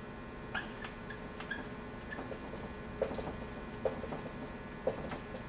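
Dry-erase marker squeaking and tapping on a whiteboard as characters are written, in a series of short, irregular strokes.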